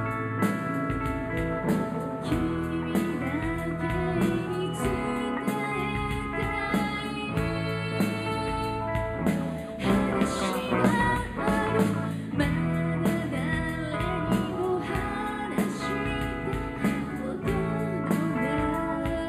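A woman singing live into a microphone, backed by a band with guitar and a steady drum beat.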